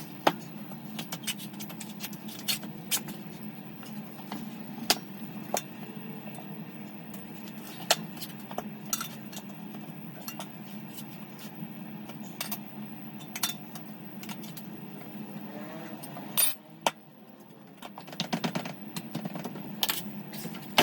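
Tools and metal parts clinking and tapping during a motocross tyre change, played back at double speed: scattered sharp clicks over a steady low hum, which drops away about three-quarters of the way through.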